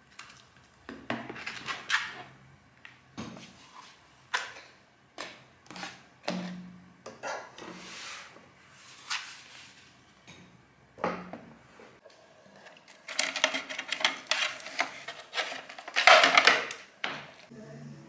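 Things being handled and set down on a tabletop: separate knocks and light clatter about every second, then a few seconds of denser rustling and clatter near the end.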